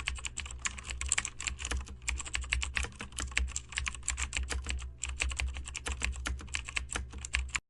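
Typing on a computer keyboard: a fast, uneven run of key clicks, with a short pause about five seconds in.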